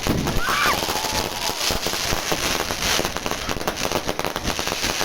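Fireworks going off in dense, rapid crackling bursts, with a brief high wavering sound about half a second in.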